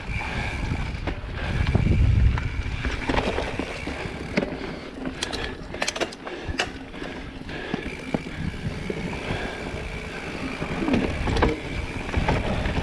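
Mountain bike riding over rough dirt singletrack: tyres on dirt and rattles and knocks from the bike over roots and stones, with a cluster of sharp knocks about halfway through. Wind buffets the microphone, loudest about two seconds in.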